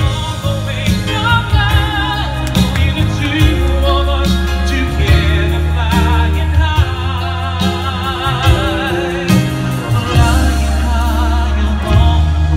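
Male vocalist singing live into a handheld microphone over a musical accompaniment with a steady bass, amplified through PA speakers; held notes carry a wide vibrato.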